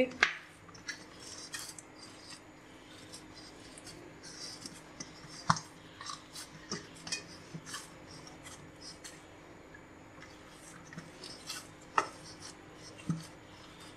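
Hands kneading a stiff flour-and-semolina dough in a stainless steel dish. There are soft, irregular knocks and scrapes of the dough and knuckles against the metal, with a few sharper taps: one about halfway through and two near the end.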